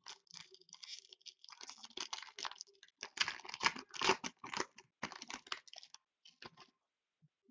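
Foil wrapper of a 2013-14 Totally Certified hockey card pack being torn open and crinkled by hand. It makes a run of crackling tears and rustles, loudest about halfway through, that stops shortly before the end.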